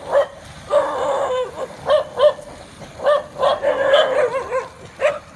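Dogs yipping and barking in about a dozen short, high yelps, with longer whining stretches about a second in and around four seconds in.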